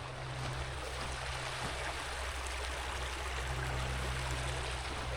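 Steady rush of the Santa Cruz River's flowing water, with a steady low rumble underneath.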